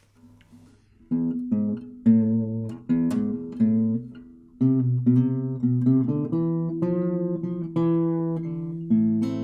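Acoustic guitar played solo, picked chords ringing out one after another. It starts faintly and comes in clearly about a second in.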